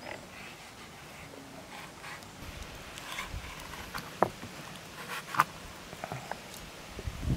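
Kitchen knife skinning a catfish fillet on a wooden cutting board: faint scraping of the blade along the skin, with a few short taps and clicks.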